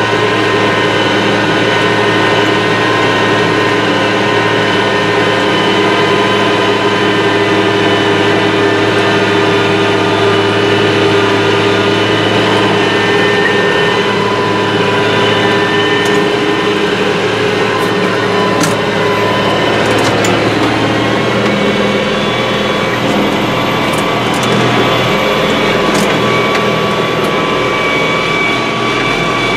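IH 3788 2+2 tractor's six-cylinder diesel engine running steadily under load, heard from inside the cab. Its note shifts about two-thirds of the way through, and a few sharp clicks sound along with it.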